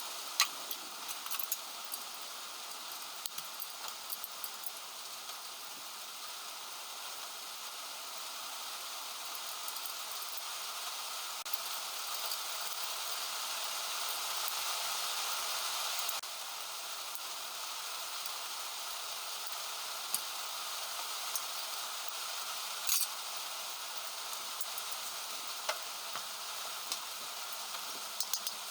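Heavy rain falling, a steady hiss that swells and then drops off abruptly about sixteen seconds in, with scattered sharp clicks and taps now and then.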